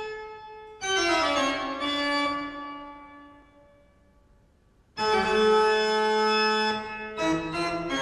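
Keyboard music with organ-like held chords. About a second in, a run of notes steps downward and slowly fades away, and about five seconds in a new sustained chord begins.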